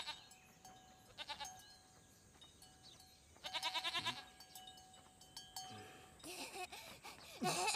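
Goats bleating with a quavering tremble: a short bleat at the start, another about a second later, and a longer, louder one a few seconds in. Near the end a warbling, voice-like animal sound comes in.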